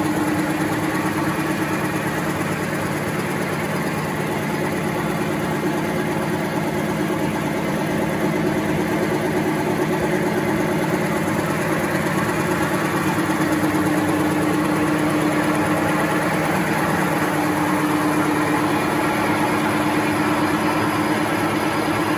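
XY-OQ-7000K high-speed two-deck, two-colour napkin paper making machine running steadily: a continuous mechanical hum with one strong low tone.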